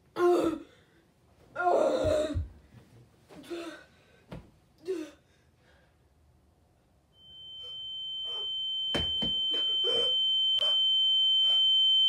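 A boy's short, strained gasps and choked breaths as he holds in a sneeze, over the first five seconds. From about seven seconds in, a steady high-pitched ringing tone comes in and grows louder to the end, with a few sharp knocks and brief vocal sounds over it.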